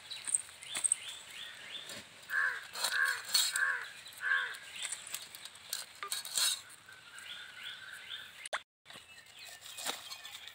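Snakehead fish scales being scraped off against a curved, floor-mounted iron blade: a run of short scraping clicks. A bird calls four times, evenly spaced, about two seconds in.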